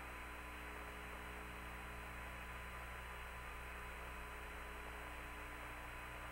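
Steady low electrical hum with a faint hiss and a thin high tone on the open radio channel between transmissions.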